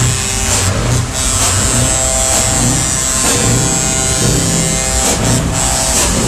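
Loud music with a steady bass beat of about two thumps a second, over a steady high-pitched buzz.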